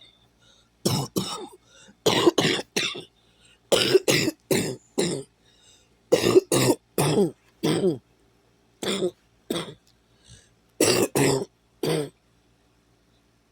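A person coughing in a string of fits: about twenty short, harsh coughs in groups of two to six, with brief pauses between the groups, stopping near the end.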